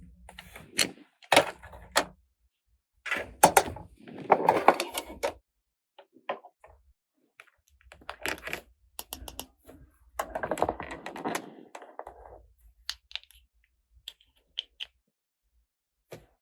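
Small plastic toy pieces being handled, clicking and tapping against each other, with two longer stretches of rustling.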